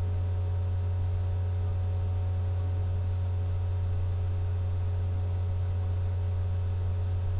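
Steady low hum, with a few faint steady higher tones above it.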